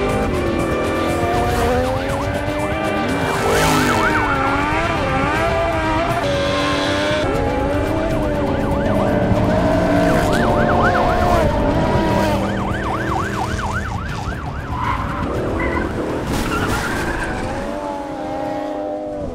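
Several motorcycle and truck engines revving hard, their pitch sweeping up and down as they rise and fall, with tires skidding. About ten seconds in there is a stretch of fast warbling revs.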